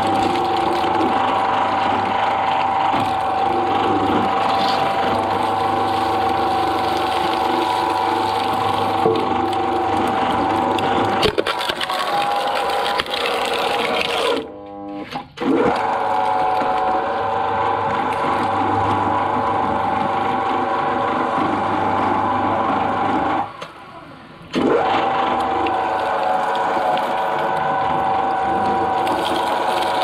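Twin-shaft shredder running, its drive whining steadily with a low hum as the turning cutter discs chew through fibrous plant stalks. There are a few sharp snaps about eleven seconds in, and the sound drops away briefly twice.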